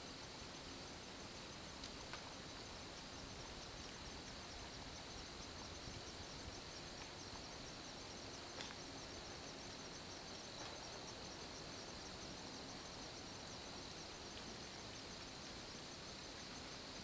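Faint insects chirping in the woods: a steady high buzz with a fast, even pulsing above it, over a quiet background hiss. One soft click about eight and a half seconds in.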